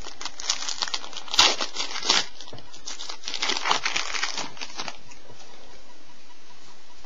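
Trading card pack wrapper being torn open and crinkled by hand: a run of crackles lasting about five seconds, loudest about a second and a half in, then it stops.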